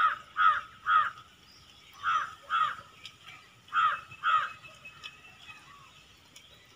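A crow cawing: seven short calls in three runs of three, two and two, stopping about two-thirds of the way through.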